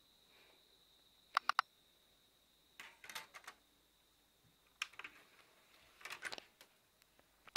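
Faint clicks and taps in short clusters, several times over, above a faint steady high-pitched tone that fades out about halfway through.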